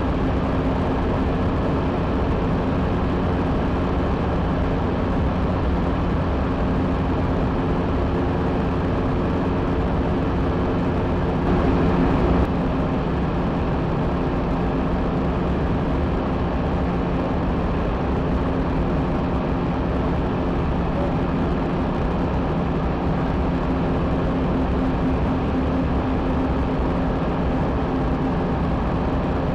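Microlight aircraft in flight, heard from inside its open, tube-framed cockpit: a steady engine and propeller drone mixed with rushing air. The sound swells briefly for about a second near the middle.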